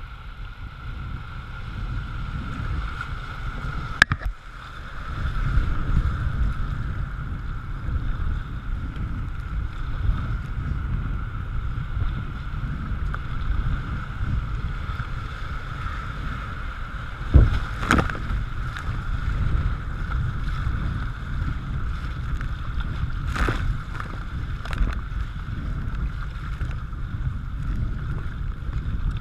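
Kayak paddle strokes and rushing river water, with wind rumbling on the microphone. A few sharp knocks stand out, the loudest about four seconds in and again near eighteen seconds.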